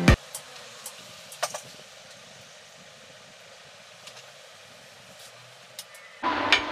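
Faint steady background noise with a few light clicks, then about six seconds in a sudden loud, steady rush of air noise as a pedestal electric fan fitted with a second set of blades is switched on.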